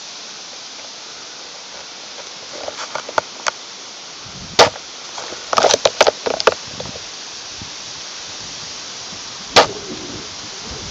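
Airsoft guns firing: sharp cracks, single shots and a quick cluster of several in the middle, over a steady hiss of wind on the microphone.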